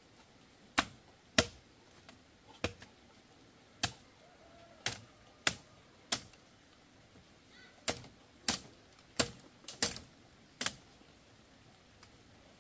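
Sharp single knocks, about a dozen of them at uneven gaps of half a second to a second and a half, like blows struck one at a time.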